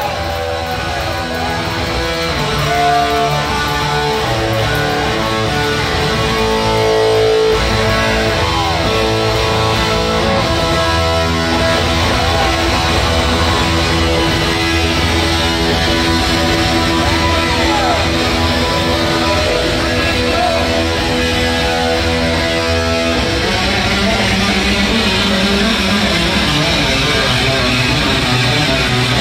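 A heavy metal band playing live: distorted electric guitar with bent notes over bass guitar and drums. The riff changes about 23 seconds in.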